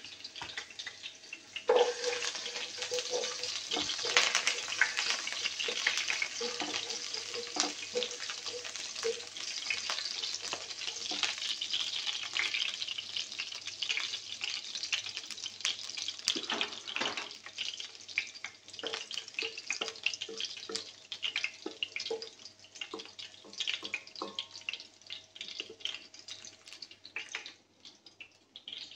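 Sliced ginger frying in hot cooking oil in a pot: a crackling sizzle full of small pops. It grows louder about two seconds in and thins out over the last part.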